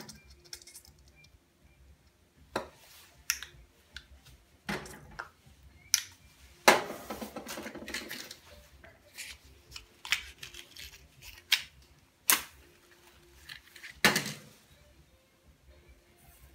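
Small objects handled on a countertop around a metal alcohol-stove burner: a scattered string of clicks and knocks, with a longer scraping rustle about seven seconds in and a sharp burst of sound near the end.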